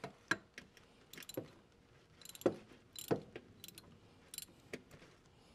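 Scattered short metallic clicks and clinks of a wrench with a T45 Torx bit working on the engine oil drain plug, cracking it loose.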